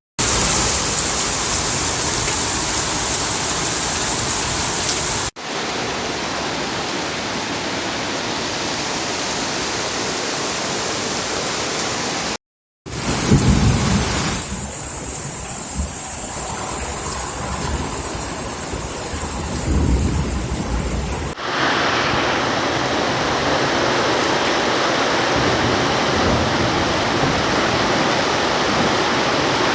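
Heavy rain pouring down with floodwater rushing through a flooded street, a steady hiss of water heard in several short recordings cut one after another. One stretch in the middle carries a deeper rumble under the rain.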